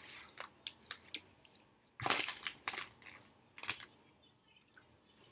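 A person chewing food: wet mouth clicks and smacks, with a louder cluster about two seconds in that thins out toward the end.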